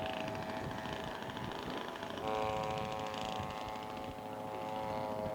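Engine of a radio-controlled scale model airplane running steadily in flight, becoming a little louder about two seconds in.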